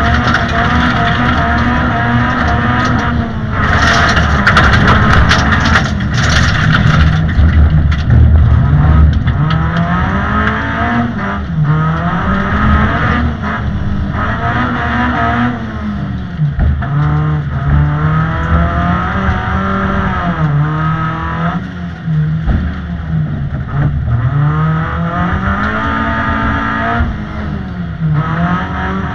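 Honda Civic EG6's 1.6-litre VTEC four-cylinder, heard from inside the cabin, revving hard and falling away again and again as the driver accelerates, shifts and lifts through the course. A loud rushing noise swells about four to seven seconds in.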